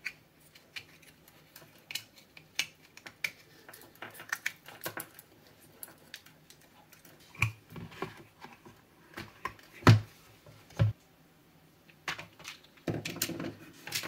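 Plastic housing parts and wiring of an EGO LB5300 cordless leaf blower being handled and fitted together during reassembly: scattered small clicks and taps, with a few louder knocks around eight and ten seconds in and a short rustling scrape near the end.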